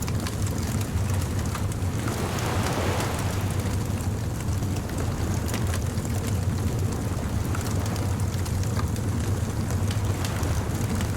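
Beach bonfire crackling with scattered small pops over a steady low rumble of surf and wind. A louder wash swells briefly about two seconds in.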